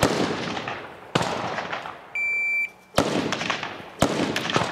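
Rifle shots crack about once a second, each with a long echoing tail, the loudest sounds here. A single steady electronic beep from an IPSC shot timer, about half a second long, comes a little past two seconds in. It is the start signal for the shooter.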